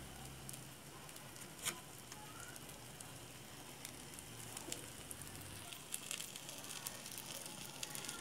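Egg, cabbage and carrot omelette mixture frying in olive oil in a pan over turned-down heat: a faint, steady sizzle with scattered small crackles. One sharper click comes about one and a half seconds in.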